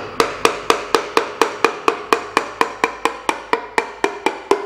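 Light, even taps of a hammer's wooden handle on a piston crown, about four a second, each with a short metallic ring, driving the piston and its rings through a ring compressor into the cylinder bore of a Mitsubishi 4B10 engine block.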